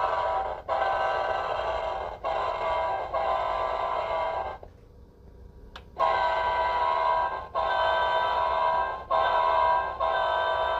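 O gauge model train whistle blowing in the grade-crossing pattern, long, long, short, long, sounded twice with a pause of about a second and a half between the two sequences.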